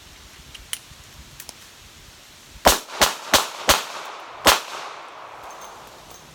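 Smith & Wesson Model 10 snub-nose .38 Special revolver firing five shots, four in quick succession a little under three seconds in and a fifth after a short pause, each shot ringing out and fading.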